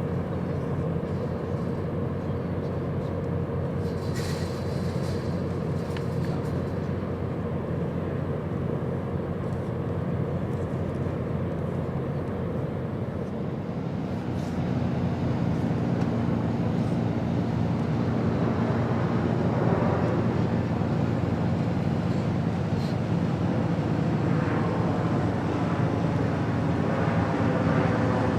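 Steady low engine drone with a constant hum, growing louder about halfway through.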